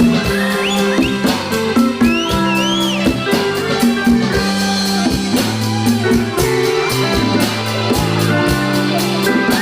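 Live band playing an instrumental passage: a drum kit keeps a steady beat under held guitar and keyboard chords.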